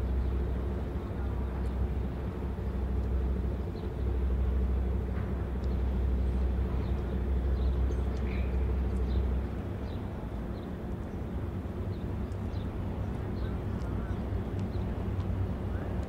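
Pool water lapping, with small birds chirping now and then. A low rumble underneath drops away a little over halfway through.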